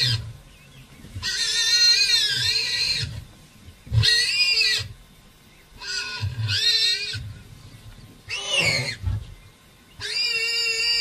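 Warthog squealing in distress while held down by a lion: about five loud, high-pitched squeals, each lasting a second or two, one of them sliding down in pitch.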